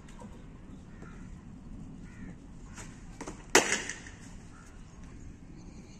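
Cricket bat striking a ball once: a single sharp crack about three and a half seconds in, with a few lighter knocks just before it.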